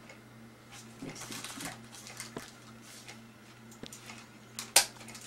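Wax paper rustling and crinkling as it is handled, with a few light clicks and one sharp snap of a handheld hole punch near the end as it punches through the paper.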